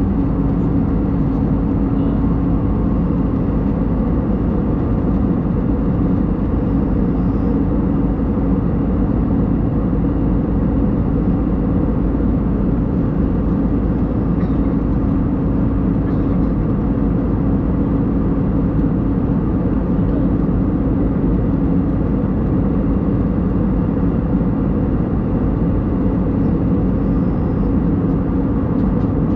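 Steady cabin drone of an Airbus A320neo airliner in cruise, the engine and airflow noise heard from a window seat over the wing, with a steady low hum running through it. The engines are CFM LEAP-1A turbofans.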